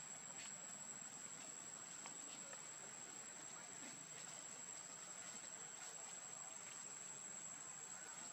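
Faint outdoor ambience: a steady, high-pitched insect drone, with a few faint scattered clicks and rustles.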